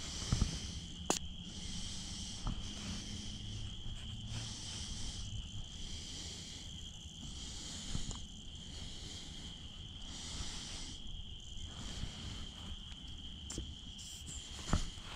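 Steady high-pitched chorus of small calling animals, with a sharp click from close handling about a second in and another near the end.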